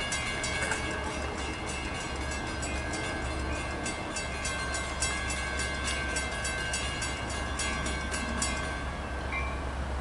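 Diesel passenger train running past close by, with a steady low engine drone and rapid clicking that stops about eight and a half seconds in.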